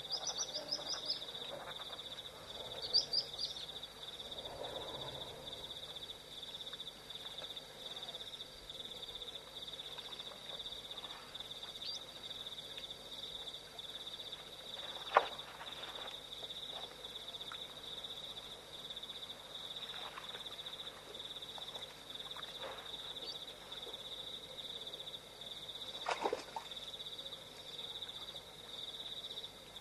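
Night chorus at a waterhole: a steady, high, pulsing trill runs throughout. A few short chirps come in the first three seconds, and two sharp clicks stand out about 15 and 26 seconds in.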